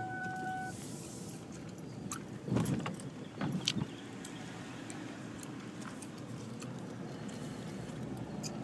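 Steady engine and road noise heard from inside a car driving slowly. A faint steady tone cuts off under a second in, and a few knocks and clatters come about two and a half to four seconds in.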